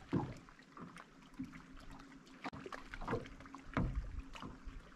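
Water splashing and lapping with scattered knocks and handling noises, a few louder splashes near the start and about three to four seconds in, and a faint steady hum setting in about a second and a half in.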